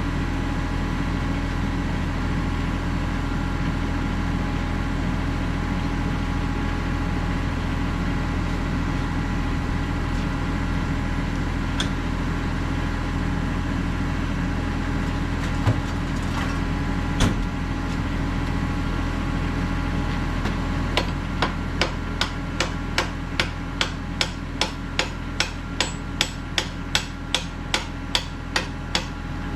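Kubota KX91-3 mini excavator's diesel engine idling steadily. Two single knocks come past the middle, then in the last third a hammer strikes about twice a second in a regular run, tapping the tilt bucket's pin into its pinhole.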